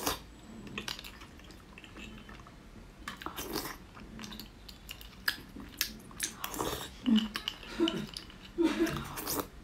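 Close-up mouth sounds of a person eating soft beef bone marrow: a wet slurp off a spoon at the start, then irregular chewing and sucking. Small clicks and scrapes of a metal spoon digging marrow out of a cut bone run between them.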